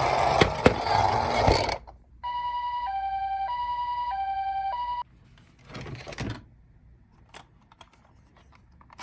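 Toy ambulance's electronic siren sounding the Japanese two-tone "pee-po" call, a high and a low note alternating about every half second for some three seconds. Before it comes a loud rushing rattle with a few sharp clicks, and after it only a brief rustle and a couple of faint clicks.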